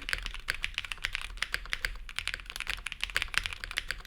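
Fast, steady typing on a custom mechanical keyboard, an Owlab Jelly Epoch with polycarbonate plate and foams, fitted with stock NovelKeys Cream linear switches and GMK ABS keycaps, giving a clacky sound. The keystrokes come in a dense run of sharp clicks, several per second.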